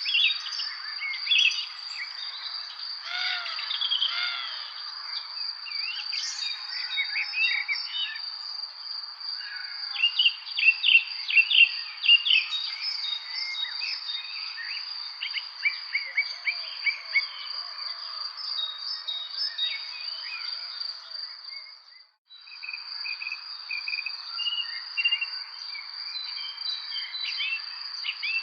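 Dawn-chorus-like mix of many small songbirds chirping and singing in quick, overlapping phrases over a steady, high, unbroken insect trill. All sound drops out for an instant about two-thirds of the way through, then resumes.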